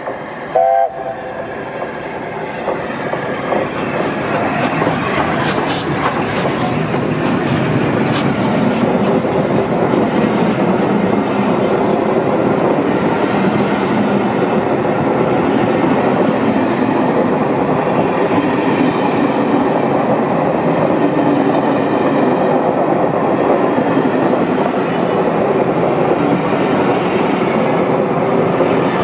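LNER A4 Pacific 60009 Union of South Africa gives a short blast on its chime whistle about a second in. Its train of coaches then runs past close by, the rumble and clatter of the wheels on the rails growing louder over the first several seconds and then holding steady.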